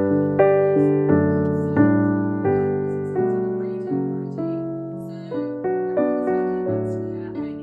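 Gentle background piano music, slow chords struck and left to fade, a new one every second or so.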